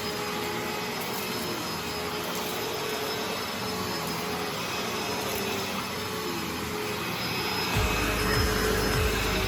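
Hoover Deluxe Elite Rewind upright vacuum cleaner running steadily with a fairly quiet motor hum. Near the end a louder deep rumble with a few knocks comes in.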